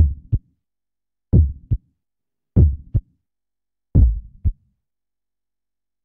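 Heartbeat sound effect: four deep lub-dub double thumps, evenly spaced about one and a third seconds apart.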